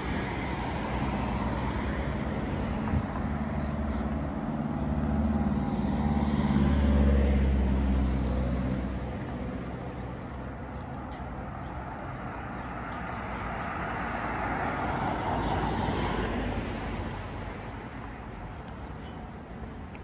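Road traffic passing close by. An engine's low rumble swells to a peak about seven seconds in and fades away, and a second vehicle passes a little later as a rising and falling rush of noise.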